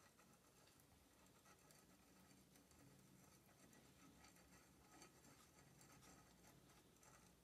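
Near silence, with faint small scrapes and clicks of a wing nut being turned on the threaded tensioner of a steel hacksaw frame.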